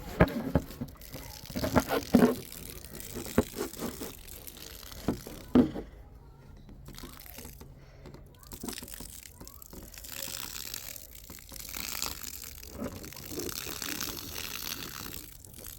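The tumble dryer's plastic condensate water tank being handled, with knocks and clicks, then a steady splash of its collected water being poured out.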